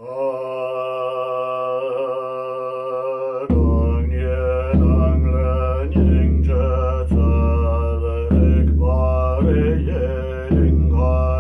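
A man chanting a mantra on a long held tone, joined about three and a half seconds in by a large Tibetan frame drum (nga) struck with a curved stick in a slow, steady beat a little over a second apart.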